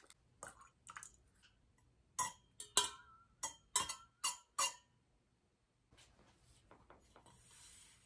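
A spoon stirring in a metal camp mug, striking the inside of the mug in a run of about eight sharp, ringing clinks.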